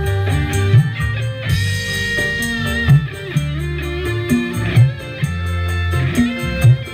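Music: a song with guitar over a heavy bass line, with a strong low hit about every two seconds.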